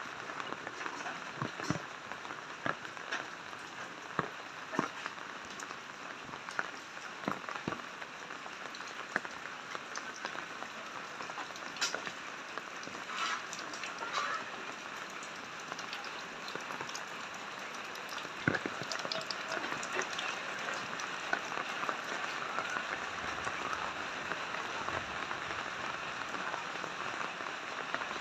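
Steady rain falling, with scattered close, sharp ticks of drops striking; the rain grows a little heavier past the middle.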